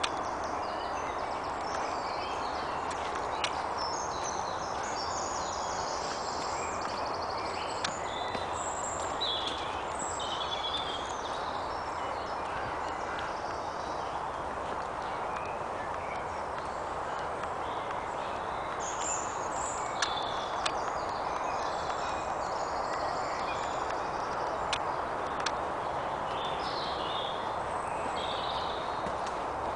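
Woodland birds singing: scattered short chirps and trills from several birds, over a steady rushing noise, with a few faint ticks.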